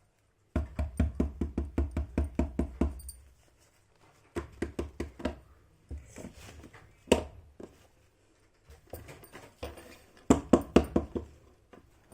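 Rapid runs of taps and knocks, about five or six a second, from small plastic toy pieces and packaging being handled and tapped on a hard surface.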